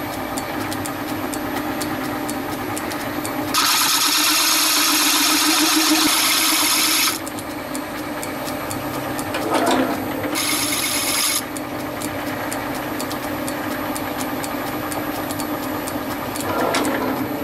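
Metal lathe running steadily, turning the outside of a cast aluminium wheel. The tool cuts the metal for about three and a half seconds, starting a few seconds in, and again briefly about ten seconds in. Each cut is a loud hiss over the hum of the machine. This is the final pass to bring the rim down to size.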